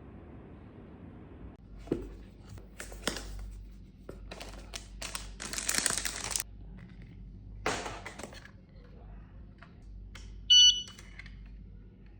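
Handling noises of a small plastic gadget: clicks, knocks and short rustles, then a single short electronic beep about ten seconds in.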